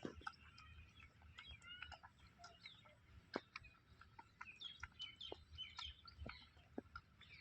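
Faint, busy chirping of small birds: many short, overlapping high chirps, with scattered soft clicks.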